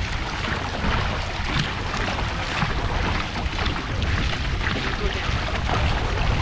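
Dragon boat paddles striking and pulling through the water in repeated strokes, with wind rumbling on the microphone.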